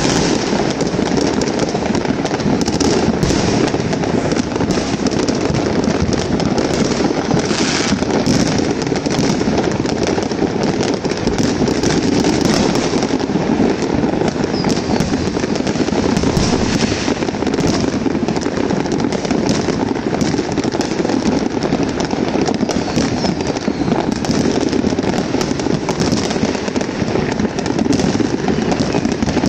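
Many fireworks and firecrackers going off at once all around: a continuous barrage of bangs, pops and crackling with no pause.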